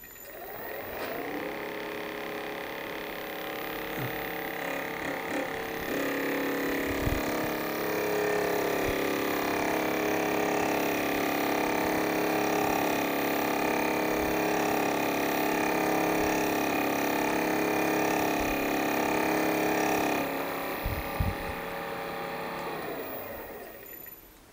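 Electric motor of a home-made milling head spinning a four-flute end mill in a collet chuck: it whines up to speed, runs steadily during a light 1 mm test cut in brass, growing louder about six seconds in and dropping back about twenty seconds in, then runs down near the end.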